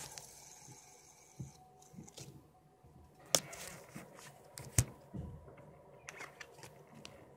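Handling noise close to the microphone: faint rustling broken by a few sharp knocks, the two loudest about three and a half and five seconds in.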